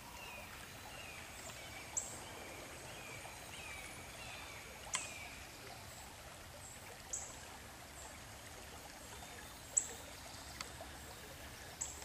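Songbirds in woodland. One sings a series of slurred whistled notes, about two a second, for the first five seconds or so, and several sharp, high chip notes sound singly through the rest.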